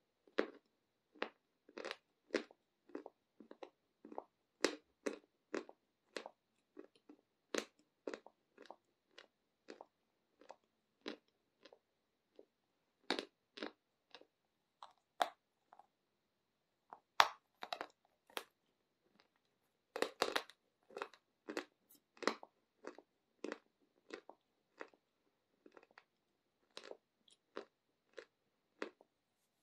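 Close-miked crunching and chewing of a lump of Aktobe edible chalk: a run of separate crisp crunches, about one or two a second, with a few brief pauses.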